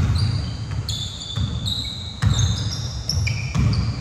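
Basketball play on a court: sneakers squeaking over and over on the floor, many short high squeals, mixed with irregular low thuds of the ball bouncing and players' feet landing.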